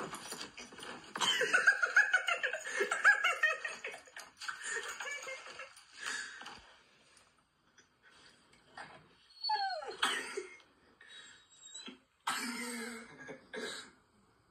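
Audio of a cat-and-dog video playing through a phone's small speaker: bursts of laughter-like voices and high, sliding calls, loudest in the first few seconds, with short lulls between.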